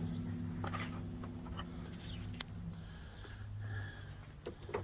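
A few light clicks and taps of hood latch hardware being handled and started by hand, over a steady low hum.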